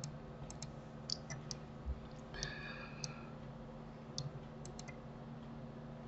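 Scattered computer mouse clicks and key presses, about a dozen, irregularly spaced over a low steady hum. A soft thump about two seconds in, followed by a brief squeak.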